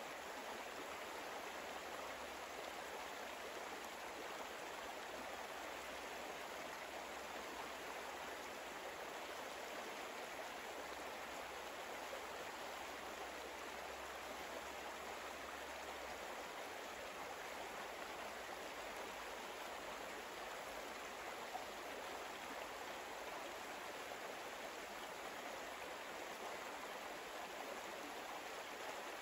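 Steady flowing-water ambience, like a gentle stream: an even rush with no breaks or changes.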